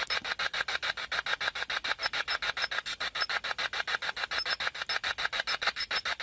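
Spirit box (ghost box) radio scanner sweeping through stations: a hissing radio static chopped into even pulses about ten times a second.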